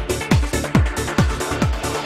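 Background music with a steady, fast kick-drum beat, a little over two beats a second.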